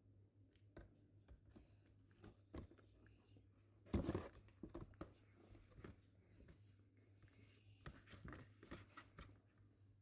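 Faint crinkling and rustling of a paper shopping bag as a cat shifts and paws inside it, with a louder crackle about four seconds in.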